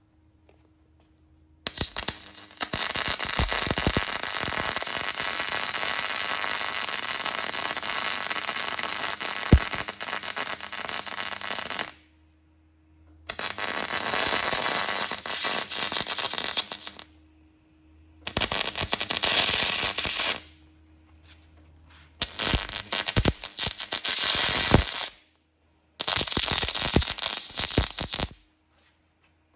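MIG welder arc at maximum setting crackling on a 30 mm steel nut, heating it until the nut melts down into the aluminium plate under it. The arc runs in five bursts that start and stop suddenly: one of about ten seconds, then four shorter ones of two to four seconds.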